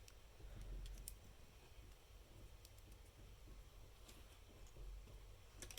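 Faint, scattered clicks of LEGO Technic pieces being handled and pushed together, a few separate clicks spread over a near-silent room.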